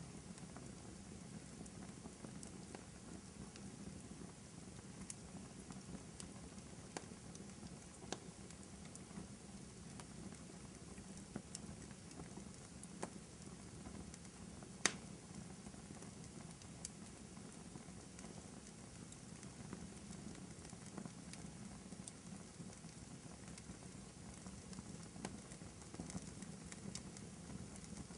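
Wood fire crackling in a fireplace: a faint, steady low rumble of flames with scattered small crackles, and one sharper pop about halfway through.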